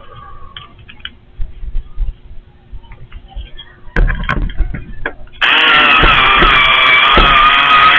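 Bumps and knocks against the camera about four seconds in, then a power drill starts up and runs steadily and loudly close by, its whine holding an even pitch.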